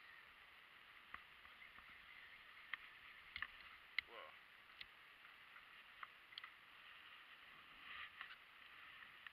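Faint, near-silent background with scattered sharp clicks from a baitcasting reel being handled, the loudest about four seconds in.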